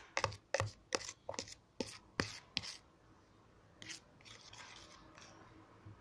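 Metal spoon knocking against a plastic tub as it stirs thick dish-soap-and-baking-soda slime, about two or three knocks a second. The knocks stop a little before three seconds in, and softer scraping of the spoon through the slime follows.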